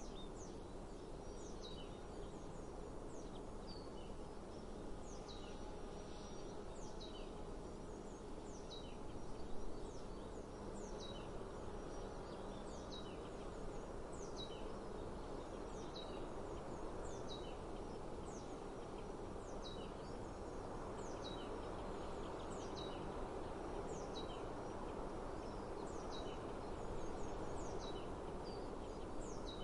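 A bird calling over and over, a short high note falling in pitch about once a second, over a steady outdoor hiss of breeze. One short louder sound comes about nine seconds in.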